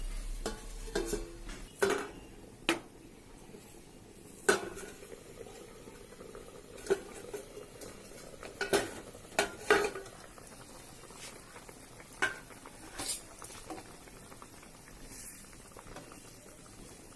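A cooking spoon knocking and scraping against a pan as the curry is stirred, in irregular clinks about a second or two apart that stop for the last few seconds.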